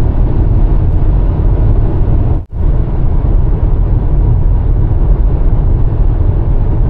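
Steady low road and tyre rumble inside a Subaru's cabin while it cruises along an open highway. The sound drops out briefly about two and a half seconds in.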